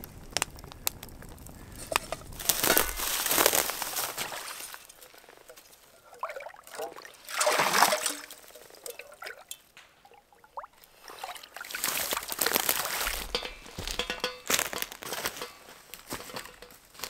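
A small metal pot dipped into water and filled, water splashing and sloshing in several bursts, the loudest about eight seconds in.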